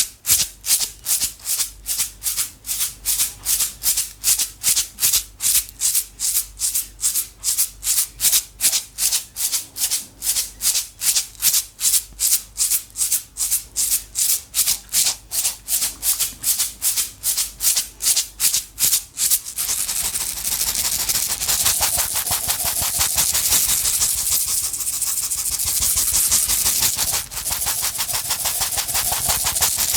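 A container of small dry objects shaken by hand, first in slow, even strokes of about two and a half a second, each a sharp rattle. About two-thirds of the way in it switches to fast shaking, a continuous hissing rattle.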